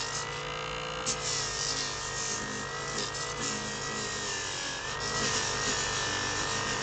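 Parkside 140-watt disc sander running steadily with a slightly wavering whine, a round piece of epoxy resin held against its spinning sanding disc for rough shaping. A single short click about a second in.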